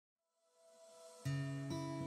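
Soft background music fading in from silence, with plucked string notes starting just over a second in.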